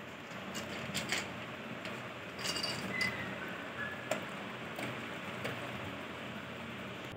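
Labrador eating dry kibble from a stainless steel bowl: irregular crunching and clinks of kibble against the metal over a steady hiss.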